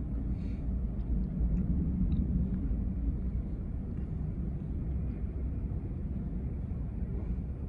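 Low, steady rumble of jet airliner engines.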